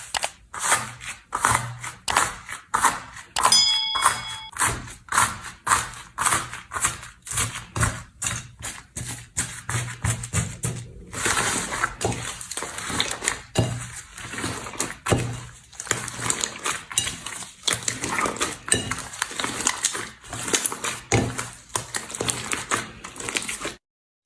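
Slime worked by hand, giving a rapid, continuous run of sticky clicks and pops at about two a second. The sound cuts off abruptly near the end.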